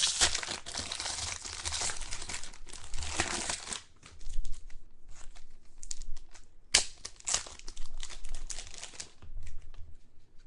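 Trading card pack wrapper crinkling and tearing as a pack is opened and handled, in two stretches: about four seconds at first, then again for about two seconds near the end, with light clicks and rustles between.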